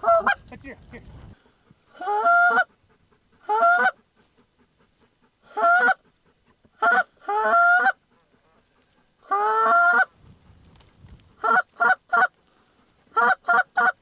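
Canada goose honks: single drawn-out honks every second or two, then quicker runs of three short clucks toward the end.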